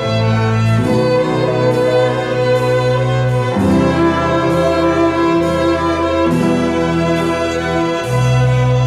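Orchestral film music led by bowed strings, the chords changing every second or two.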